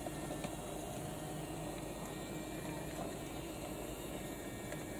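Small battery-powered toy train running round a plastic track, pulling a Munipals wooden subway car: a steady motor hum with the wheels' rolling noise and a few light clicks.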